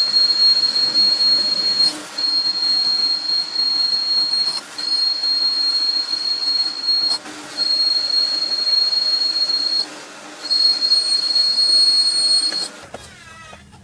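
High-pitched steady whine from a workshop machine over a hiss, in five stretches of two to three seconds broken by short gaps, then stopping near the end.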